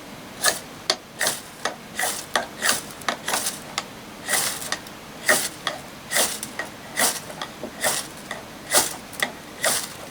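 A firesteel (ferrocerium rod) struck again and again with a scraper to throw sparks onto birch bark: about twenty short, sharp scrapes, roughly two a second.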